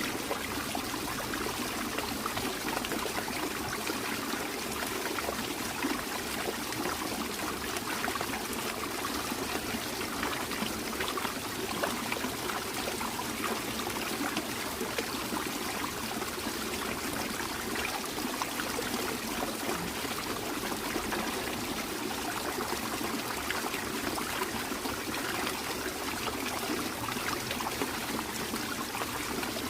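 Water trickling and splashing steadily over a very small waterfall.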